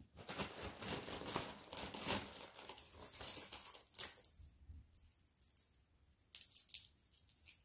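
Metal costume jewelry jingling and clinking as necklaces and chains are handled: a busy patter of small metallic clinks for about four seconds, then a few scattered clinks near the end.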